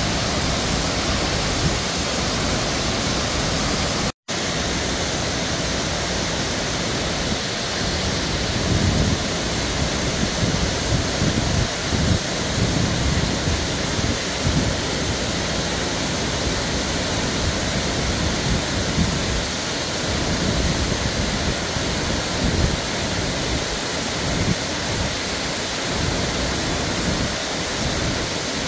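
Water cascading down a concrete stepped dam spillway: a steady, heavy rush of falling water. The sound drops out completely for a moment about four seconds in, and an uneven low rumble comes and goes beneath the rush from about seven seconds on.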